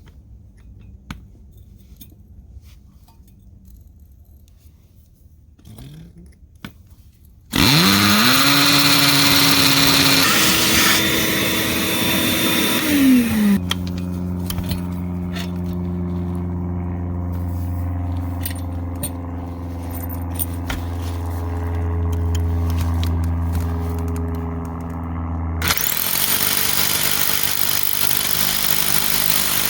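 Bauer hammer drill with a carbide bit starting suddenly after a few quiet seconds and spinning up, then boring into concrete with a steady hum. Its pitch drops about halfway as the bit bites in, and it grows louder and harsher near the end.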